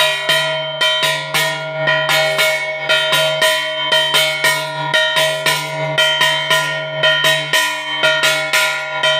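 A brass puja plate (kansar) struck over and over with a wooden stick, about three strikes a second, the metal ringing on between the blows as a worship accompaniment.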